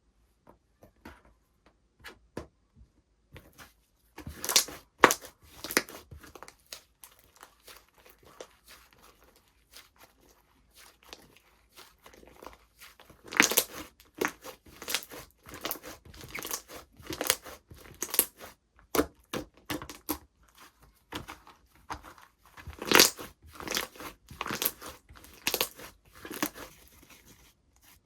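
Slime being played with by hand: sticky clicking and popping as it is stretched and pressed, with several louder stretches of quick crackling.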